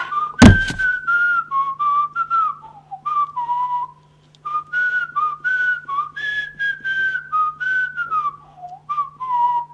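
A tune whistled note by note in short phrases. A loud thump sounds about half a second in, and a steady low hum runs underneath.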